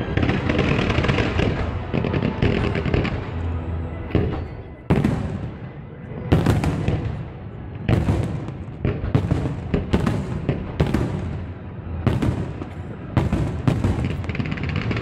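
Fireworks display: a dense crackle from the ground-level fireworks for the first few seconds, then a quick run of sharp bangs from shells bursting in the air, one after another, about one a second or faster.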